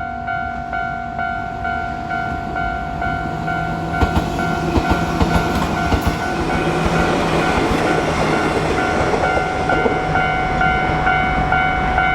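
Japanese railroad crossing alarm ringing, about two strokes a second. From about four seconds in, a Nankai Electric Railway train passes through the crossing, wheels clacking over the rail joints.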